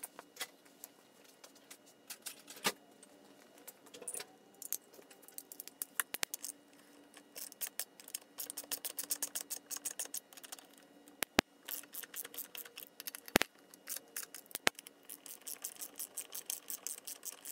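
Hand ratchet wrench with a 1/2-inch socket and extension clicking in quick runs as it turns in the oil-pump bolts on a transmission case. First there are scattered metal clinks of the tools being handled, and there are a few sharper metal knocks midway.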